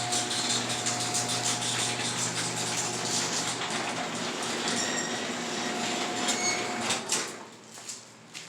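A garage door opening: a steady mechanical rumble with a hum, which stops about seven seconds in.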